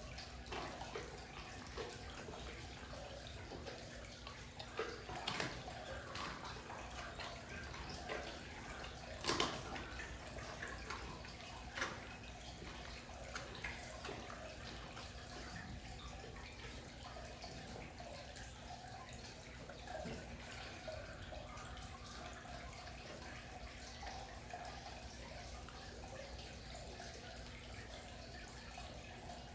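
Amur tiger eating meat: faint wet chewing and tearing with a few sharp cracks, the loudest about nine seconds in, over a steady low hum.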